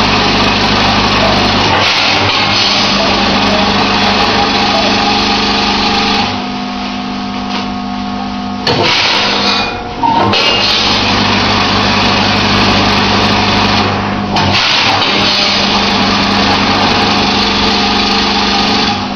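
Salt weighing-and-filling packing machine running with a loud, steady motor drone and hum. It eases off for a couple of seconds about six seconds in and dips briefly twice more before running on, as the feed starts and stops between bag fills.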